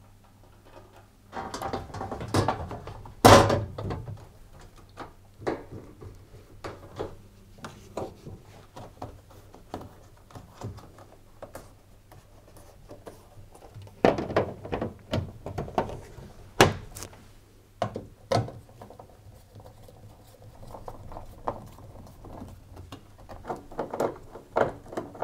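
Plastic front panel of a Hoover tumble dryer being fitted to the cabinet: a scattered series of knocks, clicks and rattles as it is handled and pushed into place, the loudest a sharp knock about three seconds in.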